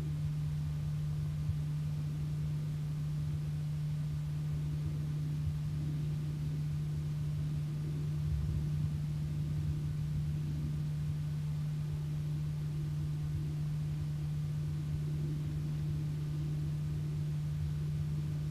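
A steady low hum over faint rumbling noise and hiss, swelling slightly about eight seconds in.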